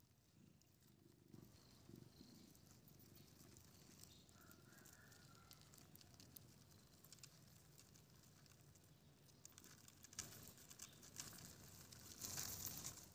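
Faint rustling and light scratching as crickets crawl over leaves in a plastic tub, with a louder rustle near the end.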